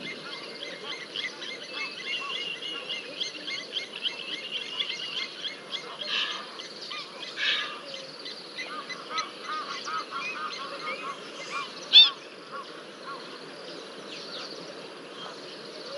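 Waterbirds calling in a busy chorus of short, repeated calls over a steady low hiss, with one louder sharp call about twelve seconds in.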